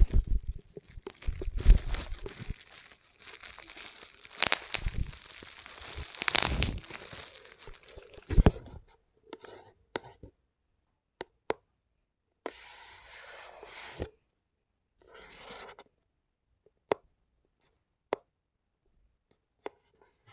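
Bubble-wrap and plastic mailer packaging crinkling and tearing as it is pulled open by hand, with sharp crackles, for about the first eight seconds. After that come short bursts of rustling and single sharp clicks from handling the cardboard box and its contents, with silent gaps between.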